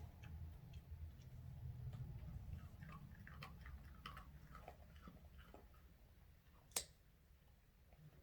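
Faint crunching clicks of a pet chewing food crumbs, with one sharp click about seven seconds in.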